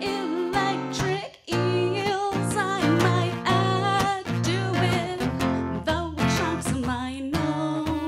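A woman singing held notes with vibrato, accompanied by a strummed acoustic guitar.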